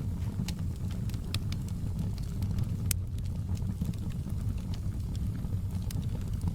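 Wood fire burning in a fireplace: irregular sharp crackles and pops over a steady low rumble, with one sharper pop about three seconds in.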